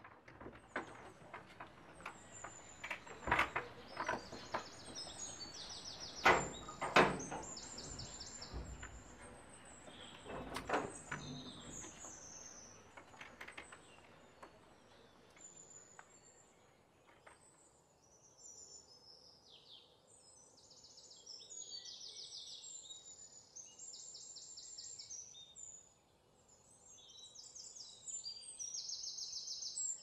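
A wooden door being worked shut and latched, with several knocks and rattles in the first dozen seconds. Small birds chirp and trill throughout, and the repeated trills grow busier in the second half.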